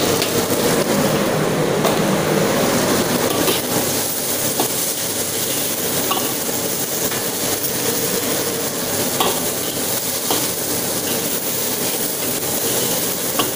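Chopped chilies, shallots and garlic sizzling in a wok as a metal ladle stirs them, with a few sharp clinks of the ladle against the wok, over the steady noise of a running blower.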